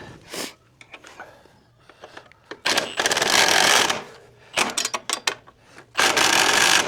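Socket ratchet wrench clicking rapidly in three bursts while bolts are turned, with a few separate clicks and taps between them.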